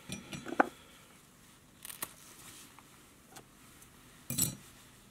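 Faint handling noises of fly tying: quick clicks and rustles with a brief squeak just after the start, a few ticks about two seconds in, and a short brushing rustle a little after four seconds, as a bunch of bucktail is taken up for tying in.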